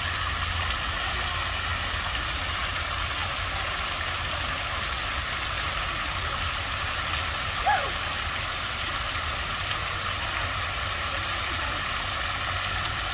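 Steady outdoor street ambience: a constant hum of passing traffic, with one short falling squeak about eight seconds in.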